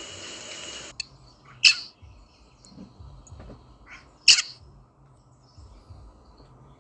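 Rosella calling in short, sharp notes, the two loudest at about one and a half and four seconds in, with a few fainter ones between. A dense hiss under the first second cuts off abruptly.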